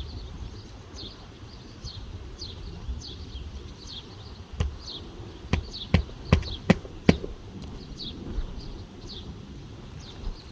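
About six sharp knocks in a cluster around the middle, from hammer work on asphalt roof shingles. Behind them runs a steady series of short high chirps, about two a second.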